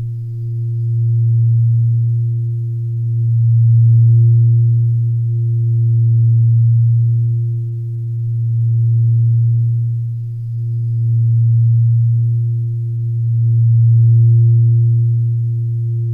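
A low, steady meditative drone tone that swells and fades about every two and a half seconds, with a faint higher overtone above it: background sound for a relaxation session.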